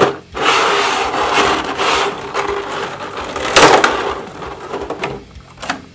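Stiff plastic blister packaging, a clear cover over a black moulded tray, crinkling and rubbing as it is handled. There is a louder crackle about three and a half seconds in, and the noise fades near the end.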